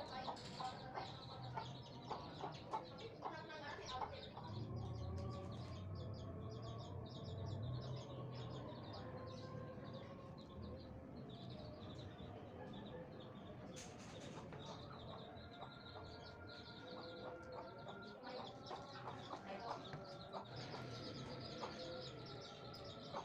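Birds calling faintly in the background, on and off, with no power tool running.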